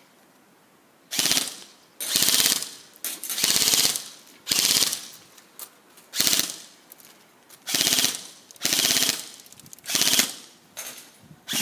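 Battery-powered airsoft M4 CQB electric gun firing about ten short full-auto bursts, each a rapid string of clicks under a second long, with short pauses between.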